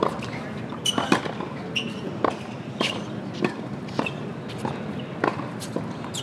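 Tennis balls struck by rackets and bouncing on a hard court during a practice rally: a series of sharp pops, about two a second.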